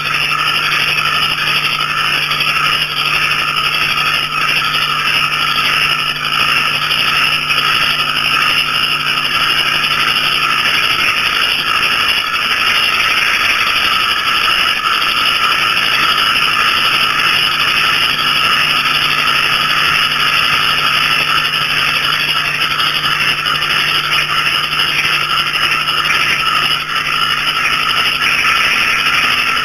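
Dense chorus of small frogs and crickets calling without pause, making a steady high-pitched din, with a faint low hum underneath.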